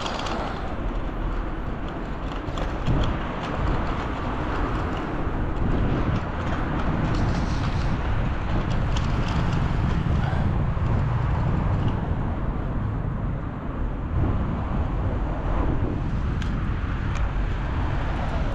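Steady street traffic rumble and hiss, heard while moving along a main road, with wind on the microphone.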